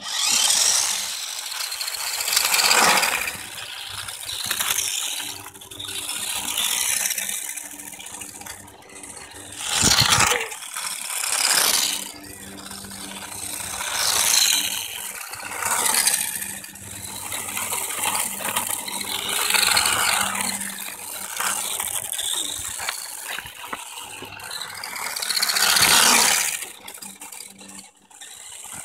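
Toy radio-controlled Audi R8 and Porsche 911 model cars driving on rough asphalt: small electric motors and plastic gears whirring, with a gritty rattle of tyres on the stones. The sound swells loud several times as a car passes close by.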